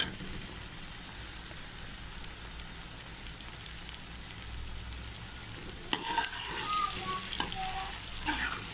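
Sliced onions, tomatoes and green chillies frying in hot oil in a metal pot, a steady sizzle. From about six seconds in, a slotted steel spoon stirs the mix, clicking and scraping against the pot.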